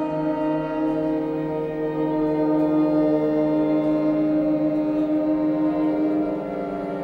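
Contemporary chamber orchestra with electronic tape holding a dense, drone-like chord of sustained, overlapping tones. The loudest held tone drops away about six seconds in, and the sound gets quieter.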